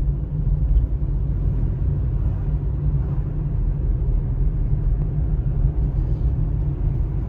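Steady low rumble of a car driving along a road, the drone of engine and tyres with no clear rise or fall.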